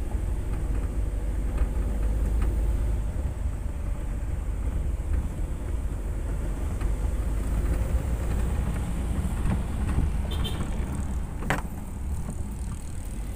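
Steady low rumble of wind and road noise heard from the open bed of a moving pickup truck. One short sharp click near the end.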